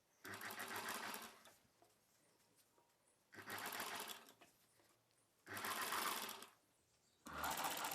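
Electric sewing machine stitching fabric in four short runs of about a second each, stopping briefly between them.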